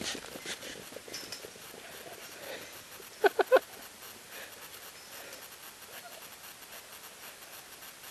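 Three quick, short yips from a Eurohound sled dog about three seconds in, over a quiet outdoor background.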